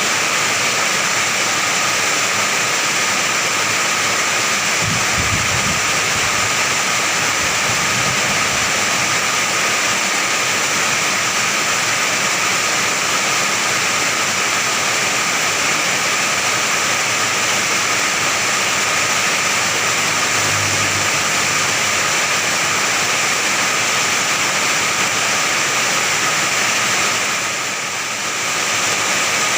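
Heavy rain pouring onto a sheet-iron roof, a steady dense hiss of water on metal. A few brief low rumbles sound about five and twenty seconds in, and the downpour eases for a moment near the end.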